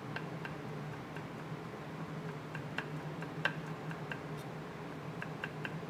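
Kitchen knife tapping on a cutting board in light, irregular strokes as garlic is cut into a fine brunoise, over a steady low hum.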